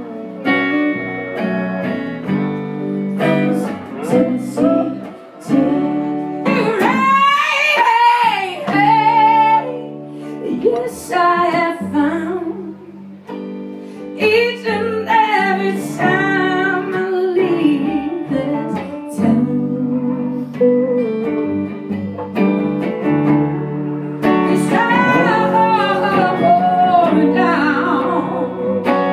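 Live band music: a woman singing, with held notes that waver, over electric guitars and an upright bass. The voice drops out for short instrumental stretches between phrases.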